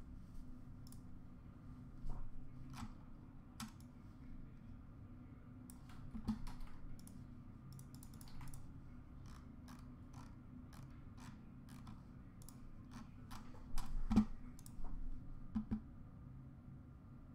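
Irregular computer mouse clicks and keyboard taps, scattered and sparse, with a quicker run of clicks about fourteen seconds in.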